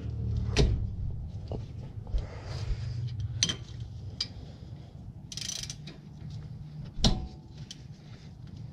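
Half-inch-drive ratchet and 14 mm socket being worked on a brake caliper bolt: a handful of separate sharp metallic clicks and knocks, with a short rasping burst about five seconds in, over a steady low hum.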